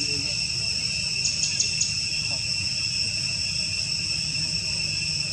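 Insects singing in a steady, continuous high-pitched drone at several pitches, with a quick run of four short high chirps about a second and a half in.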